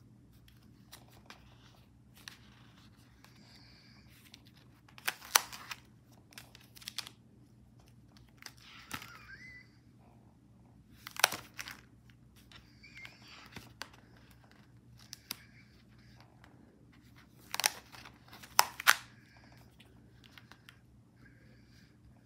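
Stiff, glue-laden collage pages of a coil-bound book being turned one after another: paper crackling and flapping with each turn, the sharpest crackles about five and eleven seconds in and a quick cluster of three near the end. A faint steady low hum runs underneath.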